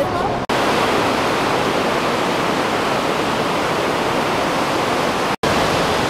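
Peguche waterfall's water pouring down in a steady, loud rush, broken by two momentary dropouts, one about half a second in and one near the end.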